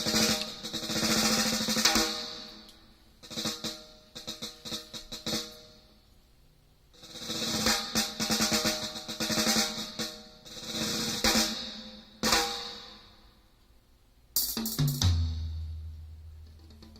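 Drum music played through a loudspeaker and picked up by a phone about a meter away: snare rolls alternating with separate drum hits, then a loud hit about three quarters of the way in followed by a low bass note that fades away.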